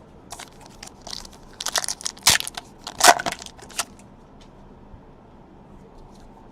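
Trading-card packaging and cards being handled: a run of short crinkling, crackling noises for about three and a half seconds, loudest a little over two and three seconds in, then quiet handling.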